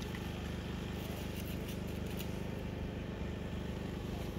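Steady low hum of an engine running at idle, unchanging in pitch and level, with a few faint ticks over it.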